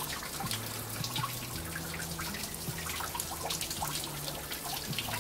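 Cold water trickling and splashing steadily, in many small drips and splashes.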